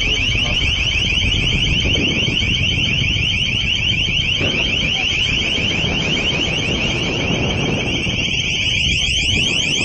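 Loud, high-pitched electronic alarm tone pulsing in rapid rising sweeps several times a second without a break, over a steady low rushing of water-cannon spray.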